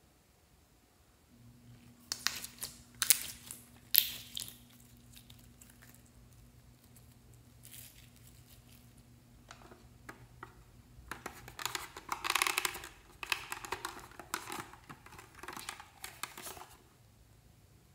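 A few sharp plastic clicks about two to four seconds in, then several seconds of plastic crinkling and rustling in the second half as plastic slime packaging is handled.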